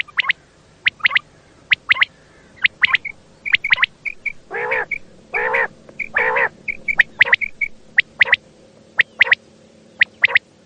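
Quail calling: a string of short, sharp notes in pairs and triplets, with three longer, lower, harsher calls in the middle.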